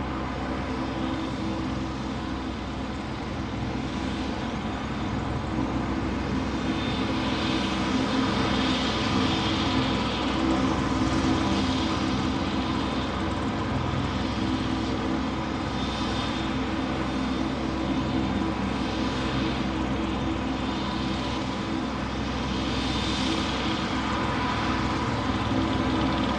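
A steady engine drone: a low hum with several held tones under a wash of noise, swelling and easing a little in loudness.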